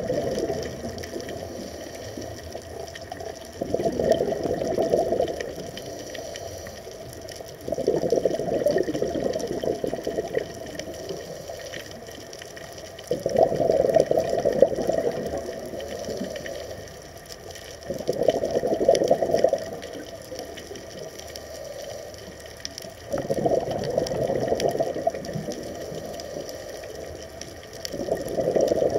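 Scuba diver breathing through a regulator, heard underwater: a rush of exhaled bubbles every four to five seconds, each lasting a second or two, with a quieter hiss of water between.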